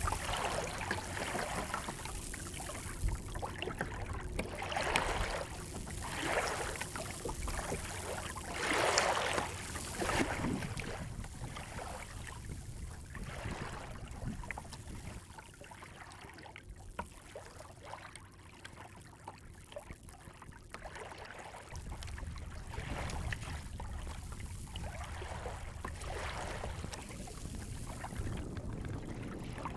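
Water splashing and gurgling against the hull of a small open wooden sailing boat under way, in irregular surges a second or so long, quieter for a few seconds past the middle.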